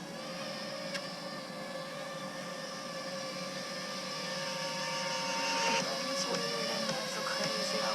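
FPV quadcopter's motors and propellers whining in flight, the pitch wavering slightly with throttle and the sound growing gradually louder, with a small click about a second in.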